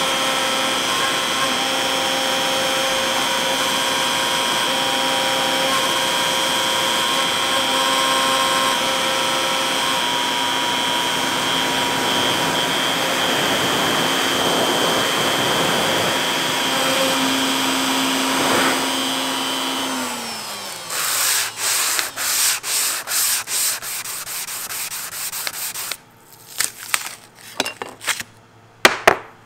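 X-Carve CNC router's spindle running with a V-bit engraving an aluminum plate, a steady whine over the cutting and dust-collection noise. About twenty seconds in the spindle winds down with a falling pitch, then comes a string of short hisses, and near the end a few light taps and knocks as the metal plate is handled.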